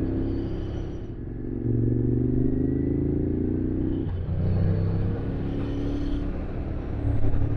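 Motorcycle engine running under way; its pitch climbs slowly for a couple of seconds and then drops suddenly about four seconds in.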